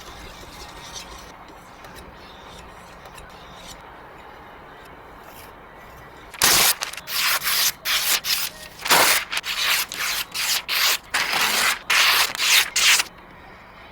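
A knife blade being sharpened with a quick series of rubbing strokes, about two a second, starting about halfway in and stopping shortly before the end.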